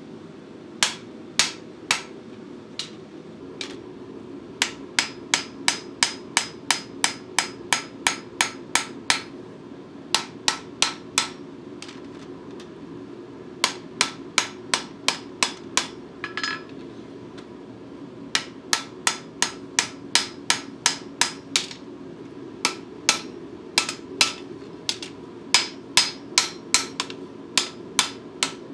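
Hand hammer striking red-hot steel plate on an anvil, forging a bevel along its edges: runs of quick blows, about three a second, broken by short pauses, several with a bright ring. A steady low hum runs underneath.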